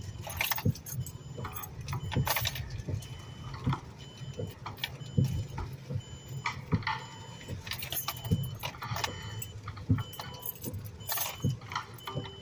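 Keys jangling and clinking again and again, over the steady low hum of a car.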